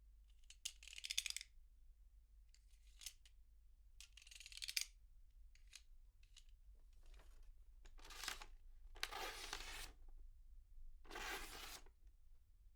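Box cutter slicing paper, heard from a little way off: a few short strokes made of rapid clicks, then three longer slicing strokes in the second half.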